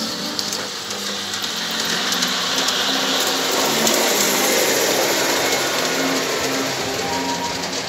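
Garden-scale model trains running past on the track, a motor-like whir with a rush of noise that swells to its loudest about four seconds in as a train passes close, then fades.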